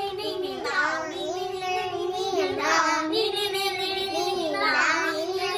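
Children singing a melody.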